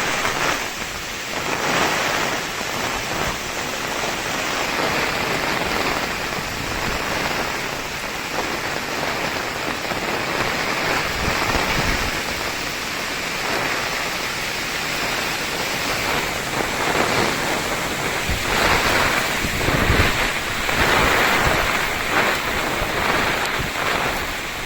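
Heavy rain falling in a storm, with gusting wind that swells and fades, and low rumbling surges about halfway through and again later.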